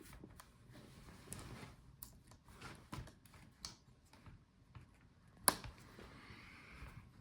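Small plastic clicks and taps as a laptop's hinge cover is pried and worked loose with a tool, with one sharp snap about three-quarters of the way through.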